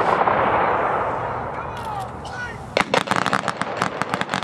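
A crowd applauding and cheering, with a few whistles. About three seconds in, a feu de joie volley of rifle shots ripples rapidly down the line, many shots in quick uneven succession.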